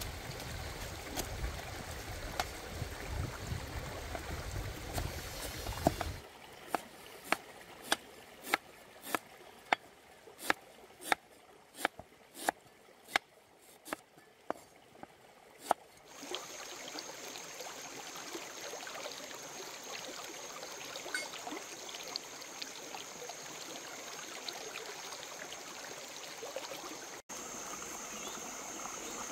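A large cleaver-like knife chopping lemongrass on a wooden chopping board: a run of sharp, evenly spaced chops, about two a second, for some ten seconds. Before and after the chopping there is a steady rush of running stream water, and in the later part a thin, high, steady whine.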